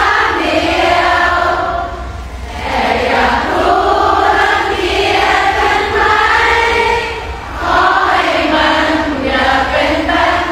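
A large crowd singing together in unison, with short breaks between phrases.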